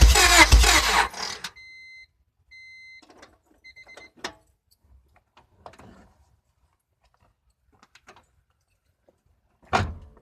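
Honda Civic engine being cranked, stumbling as if about to catch, then cutting out about a second in without running: the car won't start. Three short electronic beeps follow, then scattered light clicks and one sharp thunk near the end.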